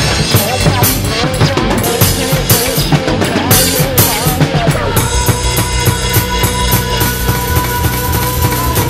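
Drum kit played fast and busy, with bass drum, snare and cymbal strokes, over a backing track. About five seconds in, the backing changes to a long held note.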